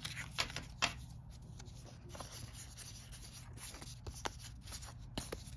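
Soft rubbing and scattered small clicks of stiff cardboard game cards being handled and fanned in the hands.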